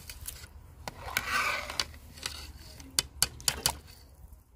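Long metal spoon stirring rice into a large pot of water, with sloshing and scraping, then several sharp taps of the spoon against the pot about three seconds in.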